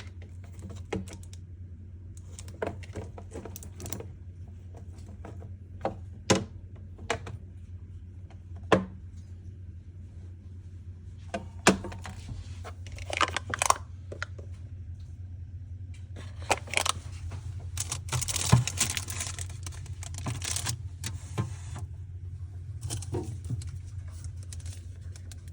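Groceries being handled and put into a fridge: scattered clicks and knocks of bottles and containers set down, with two longer stretches of rustling packaging, over a steady low hum.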